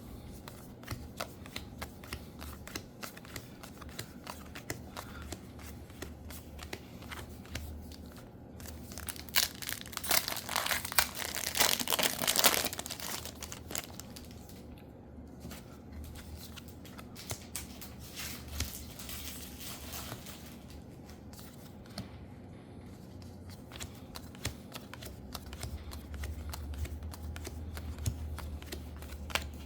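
Foil booster pack wrappers crinkling and being torn open, loudest for about three seconds starting near the ten-second mark, with a smaller crinkle later. Light rustling and ticking of the packs and cards being handled fill the gaps.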